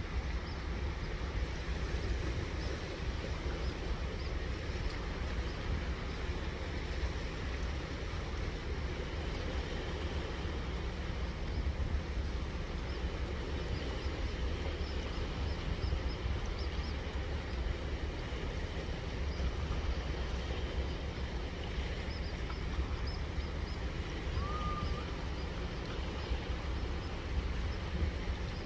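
Steady low rumble of sea surf and wind. About 25 seconds in, one short high whistle: a Jeju haenyeo diver's sumbisori, the whistling breath she lets out through pursed lips as she surfaces.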